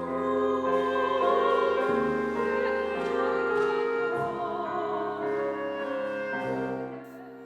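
Klezmer ensemble playing a slow, sustained piece: a held melody with vibrato over piano and acoustic bass chords, fading out near the end.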